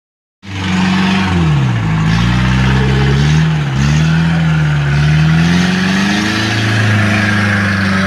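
An old jeep's engine revving hard under load as the vehicle is pushed up a muddy track. Its pitch sags and climbs again several times, with a steady hiss above it. The sound starts about half a second in.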